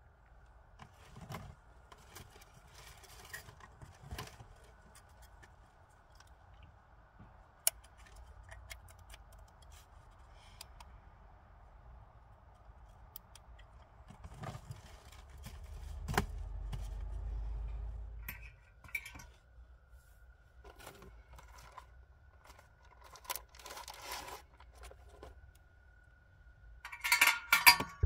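Small handling sounds: scattered light clicks, scrapes and clinks of metal chain and small objects being handled at close range. A short flurry of louder rustling and clicking comes near the end.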